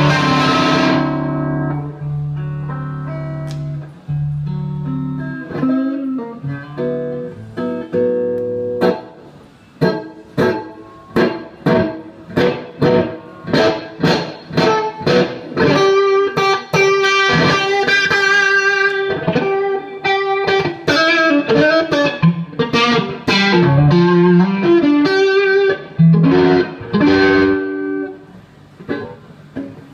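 Electric guitar played through a Bad Cat Siamese Drive overdrive pedal into a 3rd Power amplifier: ringing chords at first, then picked notes and fast single-note lines with held notes from about a third of the way in, and a strummed chord near the end.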